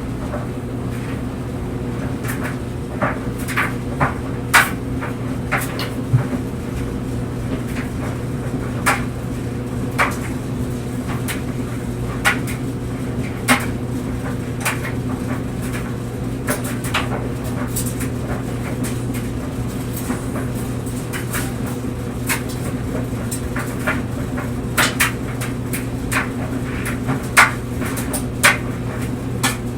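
Clothes dryer running with a load of clothes tumbling in the drum: a steady motor hum with irregular knocks and clicks every second or few as items drop and strike the drum.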